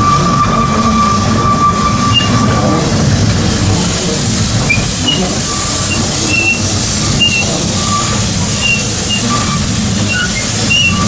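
Small narrow-gauge steam locomotive running slowly round a curve, its wheel flanges squealing: a steady high squeal for the first few seconds, then short scattered squeaks over the rumble of the running gear. Steam hisses more strongly from about halfway through.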